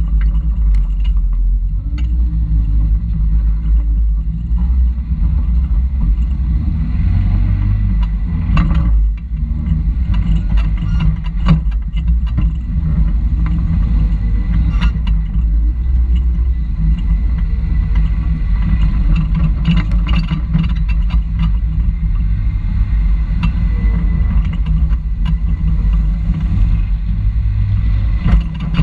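Toyota rock crawler's engine running low and steady as the buggy drives over rock and dirt, heard from a camera mounted on the outside of the frame, with frequent knocks and rattles from the chassis as it goes.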